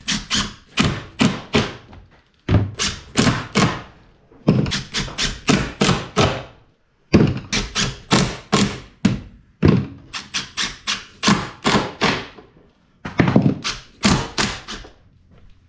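Cordless impact driver driving screws into a wooden bulkhead trim, in several bursts of rapid knocking with short pauses between.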